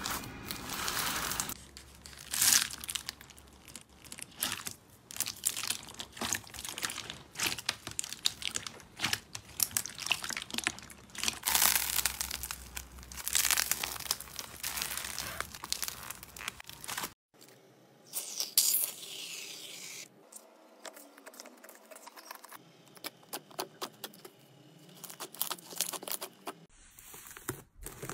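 Slime being squeezed and kneaded by hand: bead-filled slime giving off a dense run of small crackles and pops, then a thick fluffy slime tearing as it is pulled apart. Partway through it cuts to quieter, softer handling, and near the end paper crinkles under the hands.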